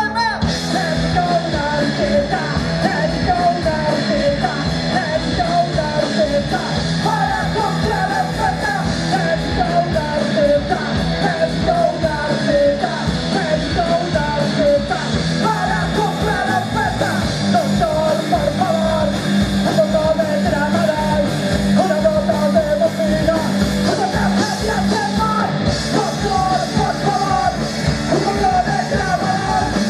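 Punk rock band playing live: electric guitar, bass guitar and drum kit with a steady driving beat, and a voice singing over them.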